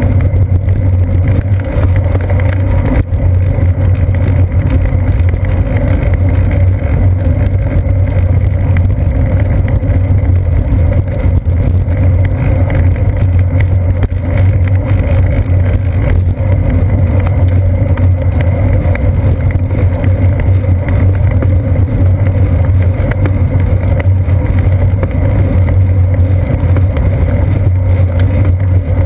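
Steady, loud low drone of a moving bicycle's tyre and road vibration, carried through a seat-post-mounted GoPro Hero 2 as the bike rolls along a paved path.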